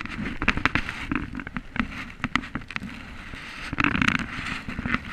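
Kayak paddle strokes: water splashing and dripping off the paddle blades, mixed with many sharp clicks and knocks, with the loudest splash about four seconds in.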